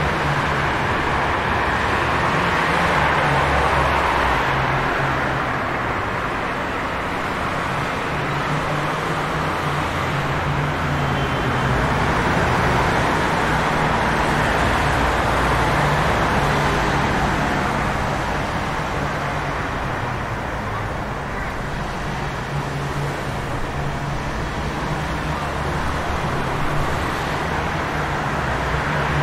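Wet city street ambience: a steady hiss of rain and tyres on wet pavement over a low hum of engines, slowly swelling and easing as traffic passes.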